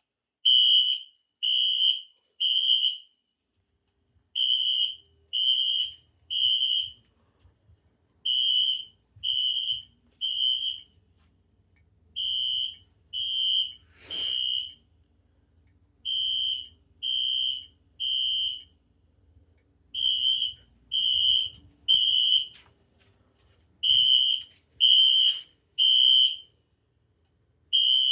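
Wheelock NS electronic fire alarm horn sounding the temporal-three evacuation pattern: three high-pitched beeps, a pause, repeating about every four seconds. Twice a sharp loud click comes from a flashing strobe.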